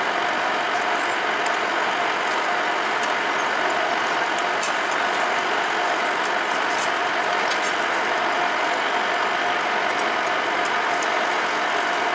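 Metal lathe running under cut, its tool turning a stringy chip off a spinning metal shaft: a steady gear-driven drone with a constant mid-pitched whine and scattered faint ticks.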